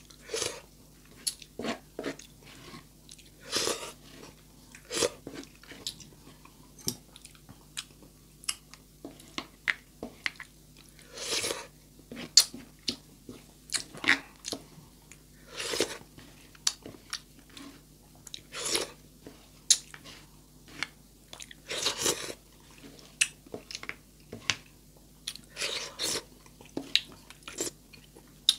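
A person chewing and biting sardines and rice close to the microphone, with irregular wet mouth sounds and occasional sharp clicks.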